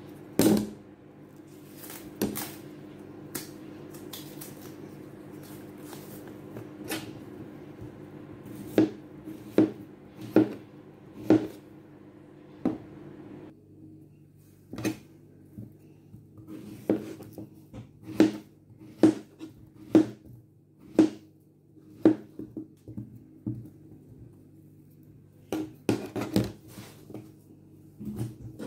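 Large kitchen knife cutting peeled unripe plantain into rounds on a plastic cutting board: sharp knocks of the blade striking the board, about one a second and irregular. A faint steady hum runs underneath.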